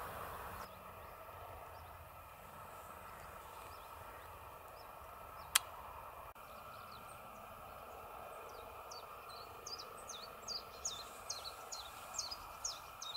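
Faint, steady outdoor field ambience with one sharp click about five and a half seconds in. From about nine seconds on, a small bird chirps repeatedly: short, high chirps, two or three a second.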